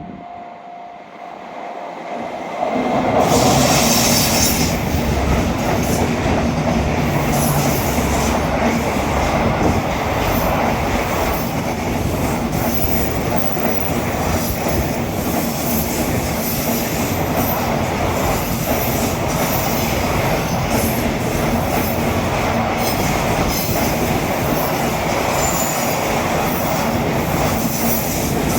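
Freight train hauled by a JR Freight EF210 electric locomotive passing at speed over a level crossing: a loud rush of wheels and wagons starts suddenly about two and a half seconds in and carries on, with wheels clicking over rail joints again and again.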